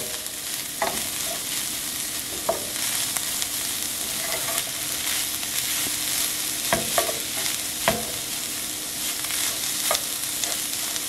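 Ground beef and onions sizzling in a pot for taco meat, the onions sweating down, while a utensil stirs the mix and knocks sharply against the pot a few times.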